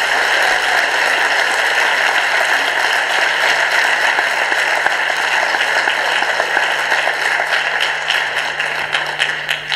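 Audience applause: dense, steady clapping that thins into scattered separate claps near the end, then stops.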